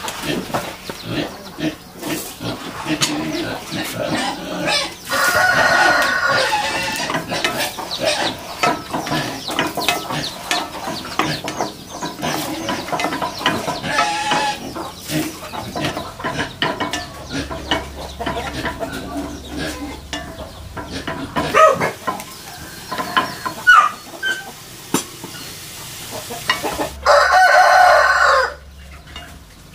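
Chickens clucking, with a rooster crowing twice: once about five seconds in and once near the end.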